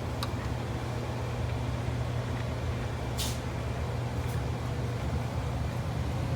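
Steady low background hum, with a small click near the start and a short hiss about three seconds in.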